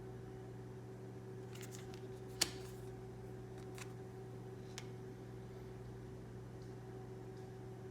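Large tarot cards being handled, with a few light ticks and one sharp click about two and a half seconds in, over a steady low hum.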